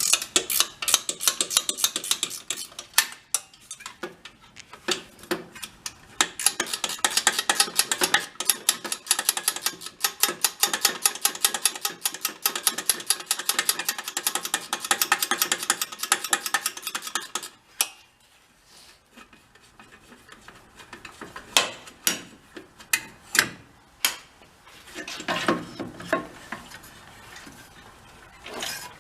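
Hand tools working on a small engine: long runs of rapid, even clicking like a socket ratchet turning bolts out, with short pauses. Near the end come a few separate metallic clinks of tools or parts being handled.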